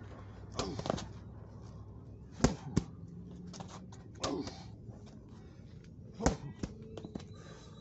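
Heavy medicine ball slammed onto the rubber-tiled ground: a sharp thud about two and a half seconds in with a quick small rebound, and another near the end. Short grunts of effort come in between the slams.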